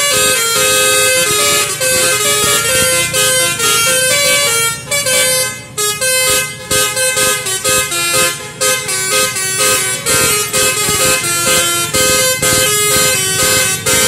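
Bus 'telolet' multi-tone horn playing a fast melody of short, stepped notes, loud.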